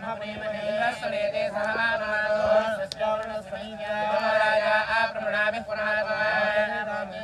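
Vedic priests chanting Sanskrit mantras, male voices in a continuous recitation with a steady tone held beneath.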